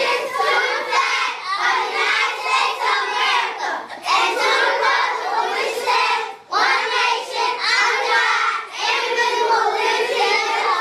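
A class of young children reciting the Pledge of Allegiance together in unison, in phrases with short pauses between.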